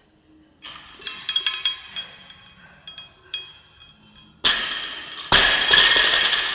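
Steel barbell and weight plates clinking and ringing as the loaded bar is handled, then two loud metal crashes about a second apart, the second the loudest, as the barbell comes down, with the crash ringing and fading.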